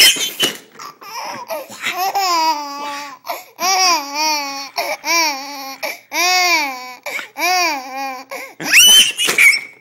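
A baby laughing hard in a run of drawn-out, rising-and-falling bursts about once a second, with a sharp high-pitched squeal near the end.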